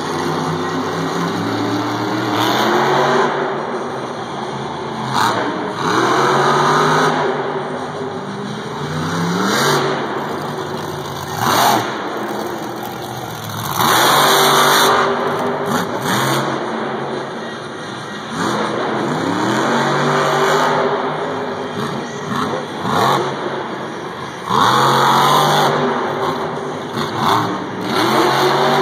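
Monster truck's supercharged V8 revving hard again and again, its pitch sweeping up and falling back. Several loud rushes of noise and bangs come through, the biggest about fourteen seconds in.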